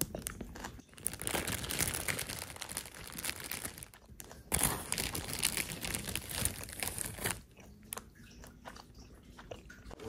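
Crunching and chewing on a puffed-rice bar (Korean ssal-gangjeong), dense and crackly for several seconds, then dropping to softer chewing near the end. The plastic snack bag crinkles now and then.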